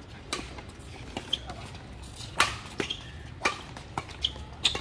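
Badminton rackets striking a shuttlecock in a fast rally: a string of sharp smacks, the later ones about every half second, the loudest about halfway through.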